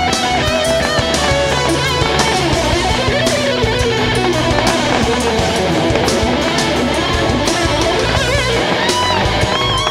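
Rock music led by electric guitar, its lead line wavering and bending in pitch over bass and a steady beat.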